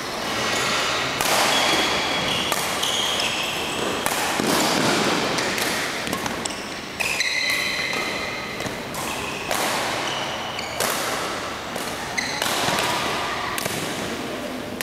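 Badminton rally: repeated sharp racket strikes on the shuttlecock at an irregular pace, with the players' footwork on the court, ringing in a large sports hall.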